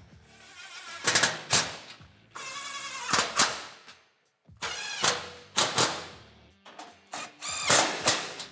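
Cordless power driver run in a string of short bursts, with one longer steady run about two and a half seconds in, as bolts are run down and tightened.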